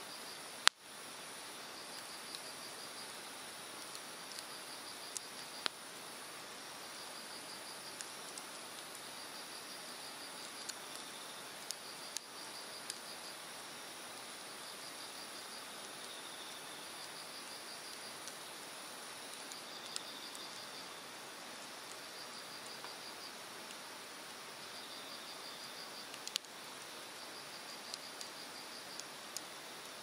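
Hardwood campfire crackling with scattered sharp pops, the loudest about a second in, over the steady rush of a mountain stream. An insect chirps in short pulsed trills every two to three seconds.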